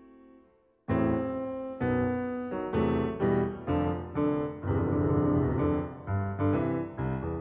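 Background piano music: a held chord fades away, then about a second in a new phrase starts, with notes and chords struck at roughly two a second, each dying away before the next.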